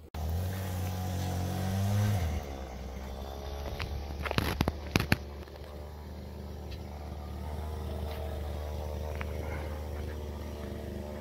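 Honda Prelude 2.2 VTi-S's four-cylinder engine idling steadily at the twin exhaust tips. The idle drops a little in pitch about two seconds in, and a few sharp clicks come around the middle.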